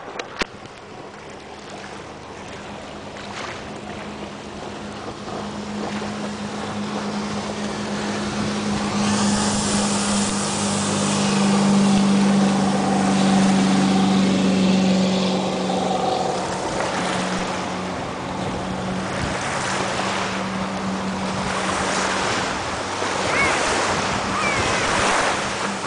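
A 1989 Century 210 speedboat's engine running at speed with a steady drone. It grows louder as the boat approaches, is loudest as it passes close by about twelve seconds in, then eases off a little, with the hiss of its wake and spray.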